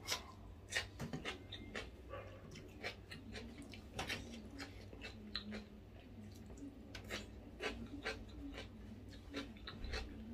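Close-up eating sounds: irregular sharp mouth clicks and crunches, two or three a second, of someone chewing a meal of fried chicken and raw vegetables, with a faint wavering whine underneath.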